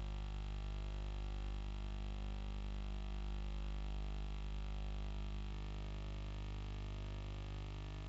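A faint, steady drone of many held tones over a strong low hum, unchanging throughout.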